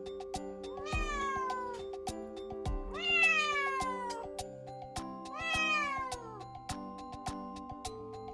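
Kitten meowing three times, each call long and falling in pitch.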